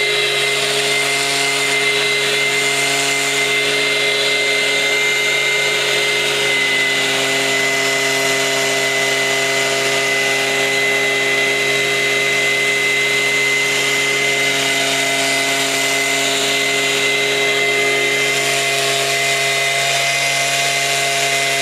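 Stihl handheld leaf blower running steadily, its engine note and fan whine unchanging, with a high steady whine above the engine sound. The blower has a spray nozzle on its outlet fed from a backpack sprayer, so it is blowing a liquid mist.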